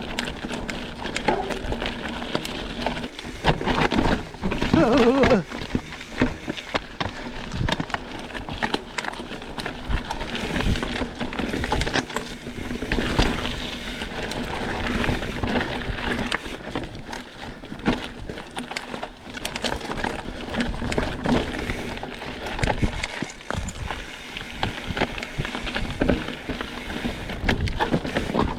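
Mountain bike being ridden along a dirt trail: tyre noise with dense rattling and clicking from the bike over bumps, and a brief wavering tone about four seconds in.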